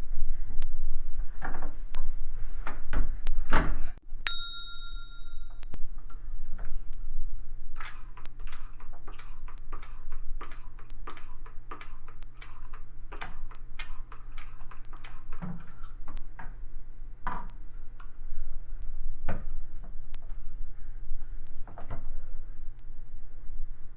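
Toshiba automatic washing machine: a short electronic control-panel beep about four seconds in, among scattered clicks and knocks, with a steady low hum after the beep. The first few seconds hold louder knocking and rumbling.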